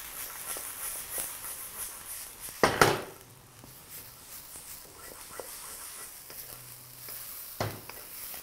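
Chopped onion, garlic, ginger and capsicum sizzling in hot oil in a wok over a high flame as a wooden spatula stirs them. The spatula knocks and scrapes against the pan, loudest just under three seconds in and again near the end.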